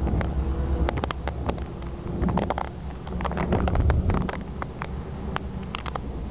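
A car driving at highway speed: a steady low rumble of engine and tyre noise, with many short light clicks and knocks over it.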